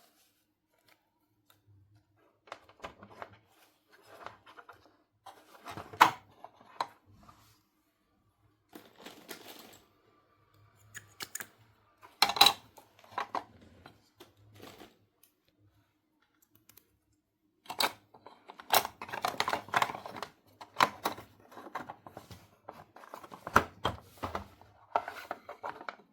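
Small plastic toy pieces and packaging being handled: scattered clicks, taps and rustles, in short bursts with pauses between.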